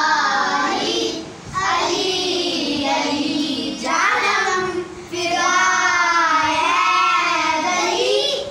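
A group of children singing a manqabat, a devotional poem, together in phrases with short breaks between them. The longest line is held through the second half.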